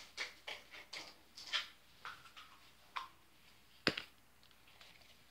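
Light taps and clicks of small plastic Play-Doh tubs and dough being handled, with one sharp click about four seconds in.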